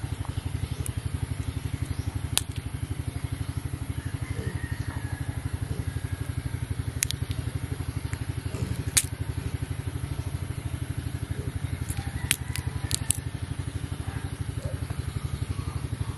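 A small wild melon being pulled apart by hand: a few sharp cracks and snaps as the stem and rind break, the last ones coming in a quick cluster near the end. Under them, a small engine idles steadily with a fast, even putter.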